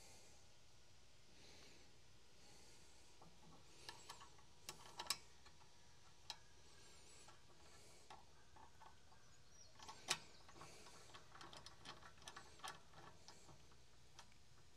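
Near silence with scattered faint clicks and light ticks, the sharpest about five and ten seconds in and a run of small ones after that: caliper bolts being handled and threaded by hand into a rear brake caliper.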